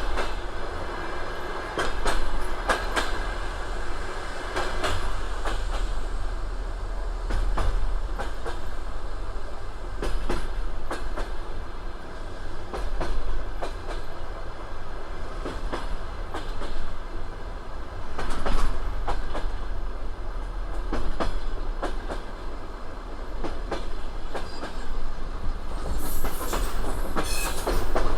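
Russian passenger train running on the line, its wheels clicking over rail joints above a steady rolling rumble, with a brief high-pitched screech near the end.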